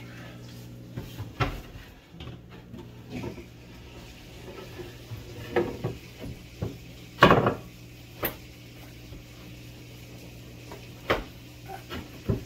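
Irregular knocks and clatter of painted boards being handled and set into place in the bottom of a sink cabinet, with the loudest knock about seven seconds in. A steady low hum runs underneath.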